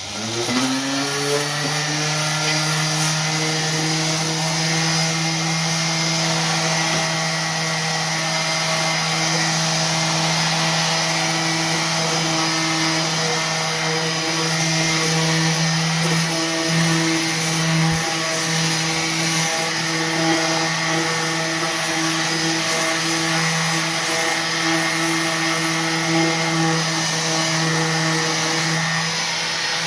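Electric orbital sander switching on, winding up in pitch within the first second, then running steadily as it sands the paint on a drawer to distress the finish.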